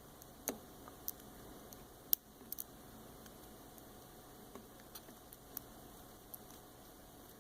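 Lock pick and tension wrench working the pins of a four-pin 40mm Master Lock padlock during single-pin picking: faint, irregular metallic clicks and ticks, the sharpest about two seconds in.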